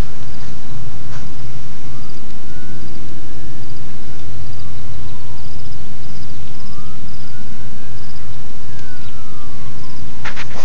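Loud, steady rumbling noise, through which a siren wails faintly, its pitch slowly rising and falling several times.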